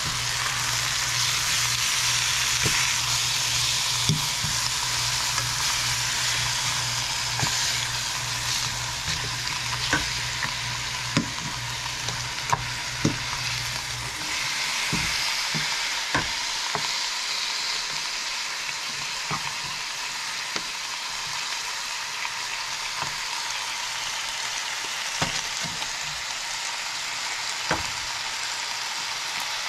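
Ham steaks sizzling steadily as they fry in a skillet, with occasional sharp clicks of a metal fork against the pan as the slices are turned over.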